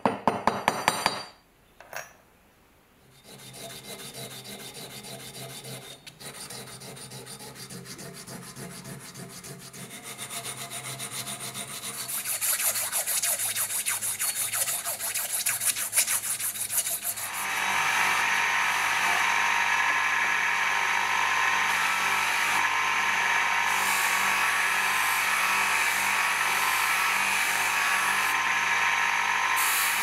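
A quick run of light hammer taps on steel, then a steady scraping rub on the steel corkscrew of a Swiss Army knife clamped in a vise, growing louder. From a little past halfway, an electric bench polishing motor spins a buffing wheel with a small knife blade held against it: a loud steady rush over a low motor hum.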